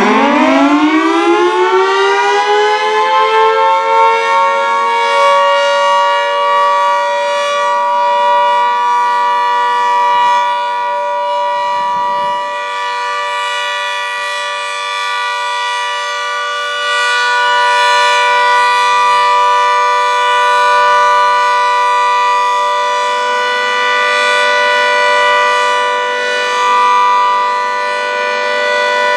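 Federal Signal 2T22 two-tone electromechanical siren winding up, its pitch climbing steeply over the first few seconds and then holding a steady two-note chord, swelling and easing slowly in loudness. This is the steady alert signal sounded for a tornado drill.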